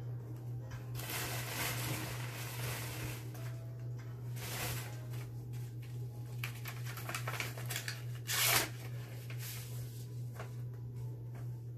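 Paper rustling and tearing as a gift is unwrapped, with one short, louder burst of it about eight and a half seconds in. A steady low hum runs underneath.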